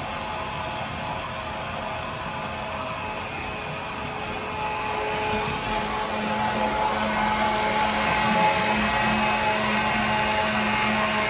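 Finish Thompson electric drum pump running steadily with a motor whine while pumping bleach out of a carboy. It grows louder about five seconds in, with a steady low hum coming up.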